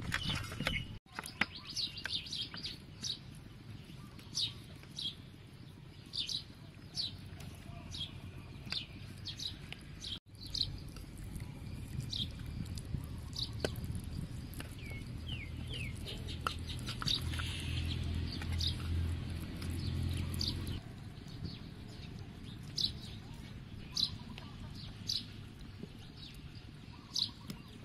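Small birds chirping over and over in short, high, falling notes. A low hum swells through the middle and stops abruptly about three quarters of the way in.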